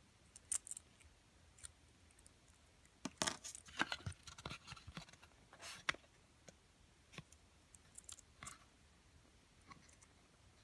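Small hard toy pieces clicking and clinking as they are handled, in scattered bursts that are busiest in the middle.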